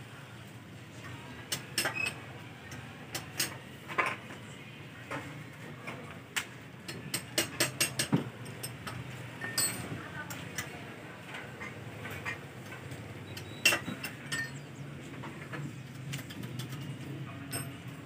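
Metal hand tools clinking and knocking against an engine as a wrench is worked at its base: irregular sharp clicks, a quick run of them about halfway, and one louder knock a few seconds later. The engine itself is not running.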